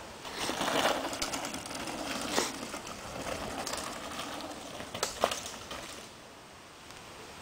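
Downhill mountain bike riding past on a dirt trail: tyres crunching over dirt and gravel, loudest about a second in, with two sharp knocks about two and a half and five seconds in. Quieter near the end.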